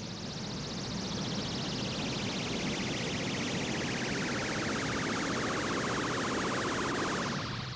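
Electronic sound effect of a toy rocket flying in. A fast-pulsing whistle-like tone glides steadily down in pitch from about a second in, over a low rumble, and cuts off just before the end as the rocket comes down.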